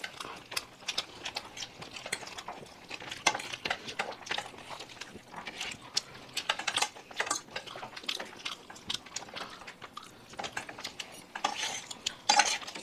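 Spoons and cutlery clinking and scraping against plates, a string of scattered short clicks at an uneven pace.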